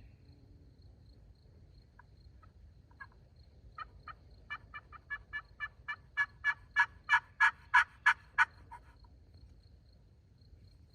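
A run of turkey hen yelps from a hunter's turkey call, about three notes a second, starting soft, building to loud, then stopping.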